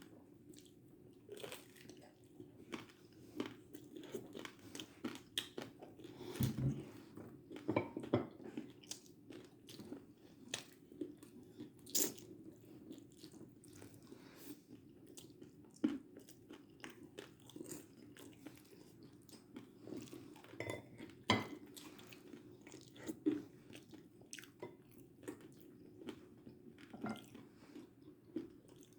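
Close, irregular crunching and scraping with scattered sharp clicks from hands working at food, busiest about a quarter of the way in and again past the middle.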